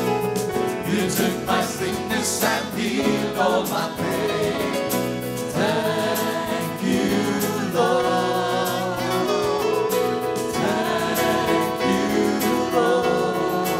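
A worship team singing a gospel song together, several amplified voices over a steadily strummed acoustic guitar and sustained chords.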